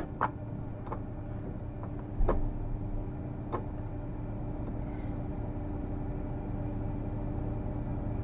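John Deere T670i combine harvester's engine idling with a steady hum. A few light clicks come in the first few seconds, with a louder knock about two seconds in.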